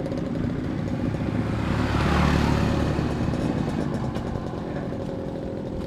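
Motorcycle engine running steadily, with a vehicle's noise swelling past and fading about two to three seconds in.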